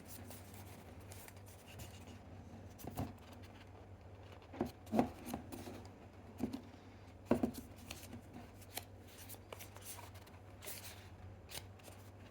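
Hands working a small product box out of a tight packaging sleeve: scattered rubbing and scraping with a few sharper clicks and knocks, the loudest about a third and halfway through.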